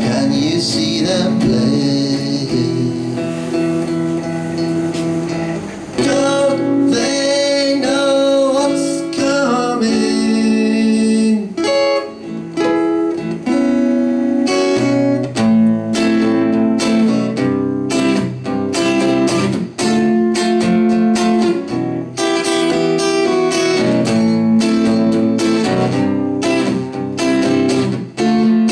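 Acoustic guitar strummed in a steady rhythm during a live song, with a melody line carried over the chords.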